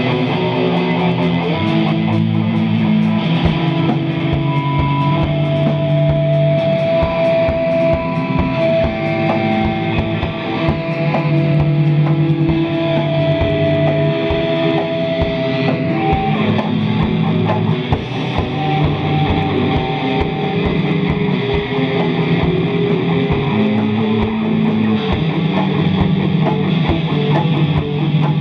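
Live noise music: a dense, loud wall of layered drones, with held pitched tones that shift every few seconds and no breaks.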